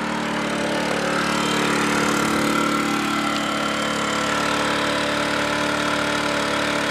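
Dirty Hand Tools 800-watt inverter generator's small engine running steadily at close range.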